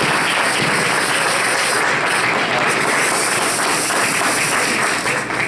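Audience applauding, beginning to die down near the end.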